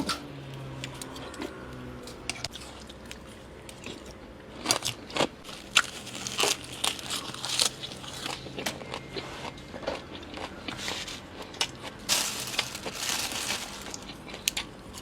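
Close-up eating sounds from a bowl of pork noodle soup: chewing and crunchy bites with many sharp mouth clicks, and a longer noisy stretch about twelve seconds in.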